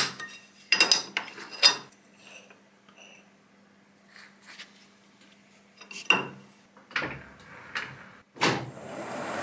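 Metal clinks and knocks from a C-spanner on a lathe's collet chuck and from the collet being handled. There are a few sharp clinks in the first two seconds and more around six to eight seconds. Near the end a clunk, then the Colchester lathe's spindle starts and its running noise rises steadily.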